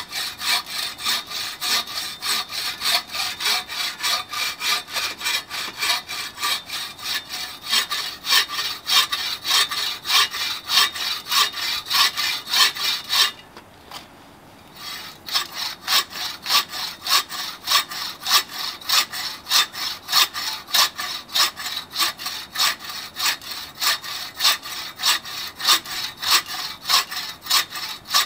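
TrailBlazer 24-inch takedown buck saw cutting through a 10-inch log, its blade rasping in steady push-pull strokes about two a second. The sawing stops briefly about halfway through, then resumes at the same pace.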